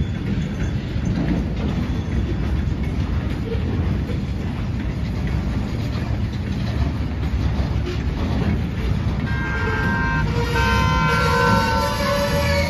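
Freight cars rolling past with a steady low rumble of wheels on rail. About nine seconds in, the wheels start to squeal, several high ringing tones at once.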